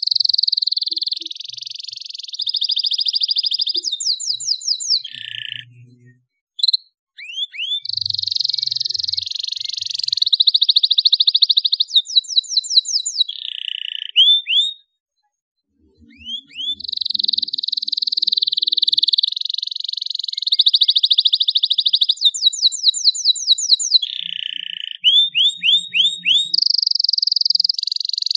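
Domestic canary singing in full voice: phrases of quick sweeping chirps run into long, fast, rattling trills, repeated over and over, with two short pauses about six and fifteen seconds in.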